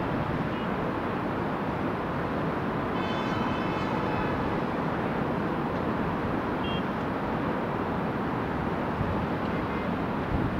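Steady rumble of heavy vehicle engines and street traffic, with a brief high-pitched squeal about three seconds in.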